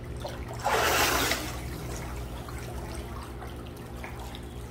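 Pool water splashing as a child swims, with one loud splash about a second in, then water lapping and sloshing.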